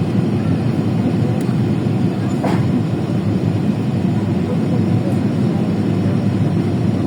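Steady low cabin roar of an airliner landing, the engines and airflow heard from inside the passenger cabin, even in level throughout.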